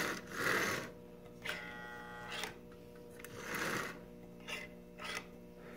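Low steady electrical hum from a powered toy-train track and transformer, with soft scuffing as a hand pushes a vintage Marx locomotive that will not run after sitting unused for decades. A short buzz sounds for about a second, starting about one and a half seconds in.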